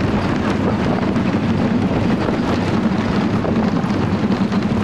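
Wooden roller coaster train running at speed along its track, a steady loud rumble with constant rattling from the wheels and cars, heard from on board.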